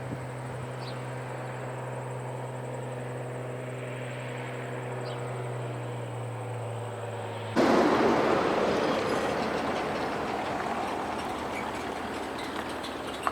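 A steady low engine hum, then a sudden cut to a louder even rushing noise that slowly fades.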